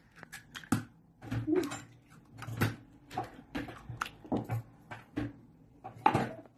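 Eggs cracked one after another into a plastic mixing bowl: a quick, irregular run of short cracks and taps of shell and bowl.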